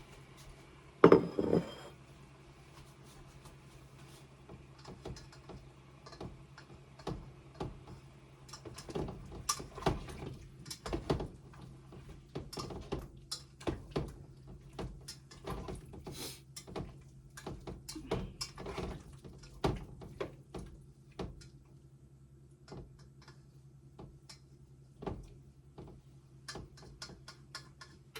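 Utensil clinking and scraping against a frying pan as cucumbers and shrimp are stirred: one loud clank about a second in, then many irregular taps and clinks that thin out in the second half.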